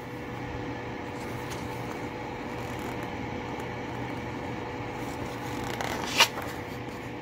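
A paper page of an instruction booklet being turned, with one short sharp rustle about six seconds in, over a steady background hum.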